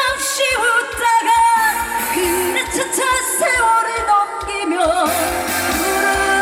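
A female trot singer singing live over a pop-style accompaniment with a steady beat, heard through a concert PA, with vibrato on held notes.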